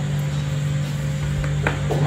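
Cucumber being cut into chunks by hand with a kitchen knife over a plastic plate, with two light knocks near the end as pieces land. A steady low hum runs underneath.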